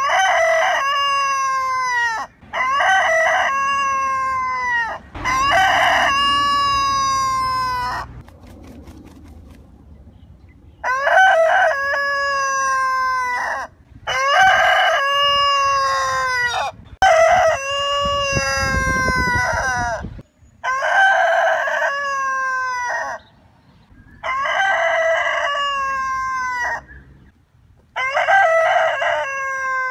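Rooster crowing again and again: about nine long cock-a-doodle-doo calls of two to three seconds each, each ending on a falling note, with a pause of about three seconds a third of the way in. A low rumble sits under one crow past the middle.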